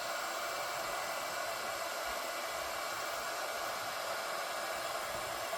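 Hot-air heat gun blowing steadily with an even fan-driven hiss, shrinking heat-shrink tubing over a fabric-covered cable.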